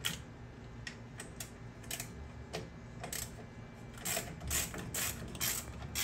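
A 7/16-inch 12-point socket ratchet clicking in short irregular runs as it backs off the bolts on a garage door torsion spring's cable drum.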